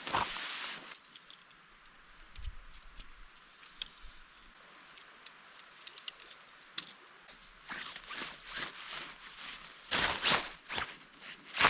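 Camping gear being handled during camp setup: scattered rustling, scraping and small clicks, with a couple of louder scuffs near the end.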